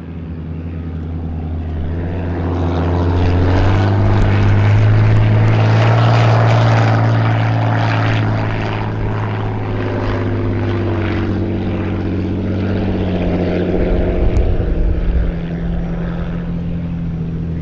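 Classic unlimited hydroplane's piston aircraft engine running, swelling louder for several seconds and then easing off, with a rough low rumble and a drop in level near the end.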